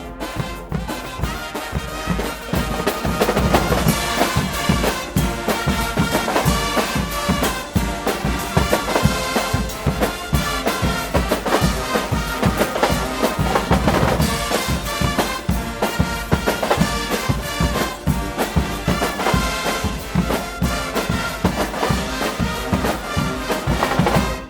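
Guggenmusik carnival band playing loudly: massed brass over a driving drum beat. The piece breaks off abruptly at the very end.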